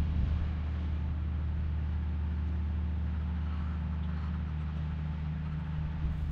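A steady low mechanical hum, like an engine or machinery running, under a faint hiss; its pitch drops a little about four and a half seconds in.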